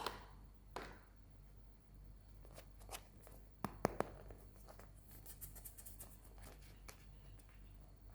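Close-miked handling of a plastic toy and its packaging: scattered taps and clicks, the sharpest at the start and twice about four seconds in, with a quick run of fine crinkling ticks about five seconds in.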